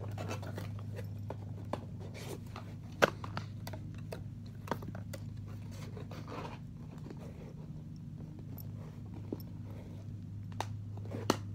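Small cardboard boxes being handled and set down: scraping and rustling with a few sharp light knocks, over a steady low hum.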